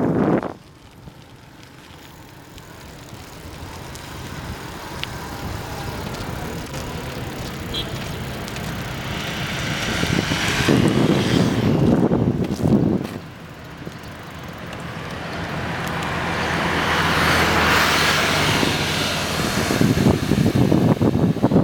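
Road traffic passing: vehicle noise builds to a peak, drops away sharply about thirteen seconds in, then builds again towards the end.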